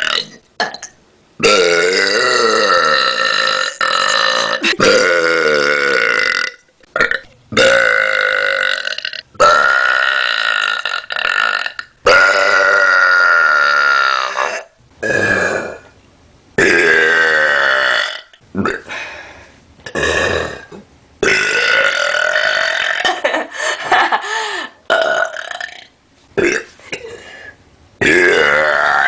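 A person belching over and over: a string of about a dozen loud, long, drawn-out burps, some lasting several seconds and wavering in pitch, with short breaks between them.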